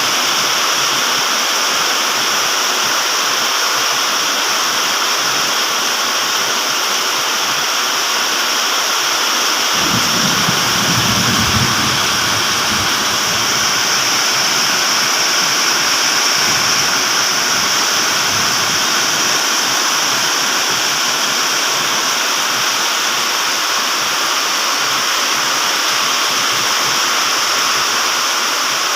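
Heavy rain pouring down in a steady, loud hiss, with a low rumble for a few seconds about ten seconds in.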